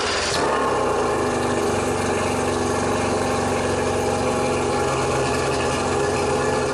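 Raider Model 50 outboard motor idling steadily just after starting, on its test run after carburetor cleaning and reassembly.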